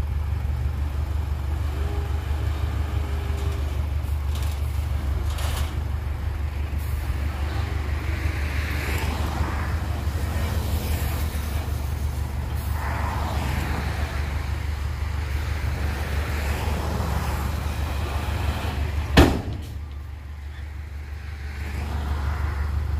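Diesel dump truck engine running with a steady low rumble as the truck manoeuvres. About nineteen seconds in there is a single sharp crack, after which the engine goes quieter for a couple of seconds. It then picks up again near the end as the tipper bed starts to rise.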